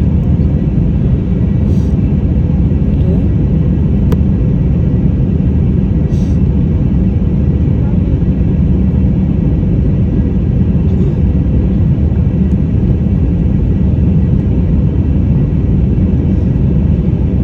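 Airliner's jet engines heard from inside the passenger cabin during takeoff: a loud, steady low rumble that does not change in level, with a few faint clicks.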